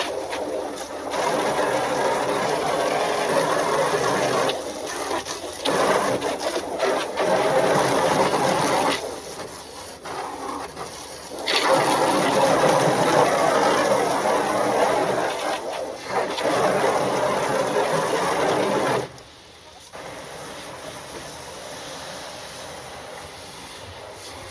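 Water running from a garden hose into the chickens' water container, coming in stretches of a few seconds with short breaks between, then dropping much quieter about three-quarters of the way through.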